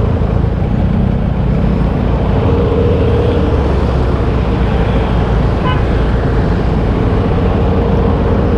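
Yamaha RX-King two-stroke motorcycle engine running steadily under way, with a dense low rumble. A short horn beep sounds about six seconds in.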